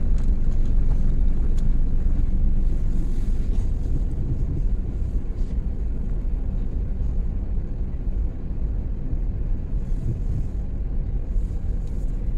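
Steady low rumble of a small manual car driving along a road, engine and tyre noise heard from inside the cabin. It eases slightly after a few seconds.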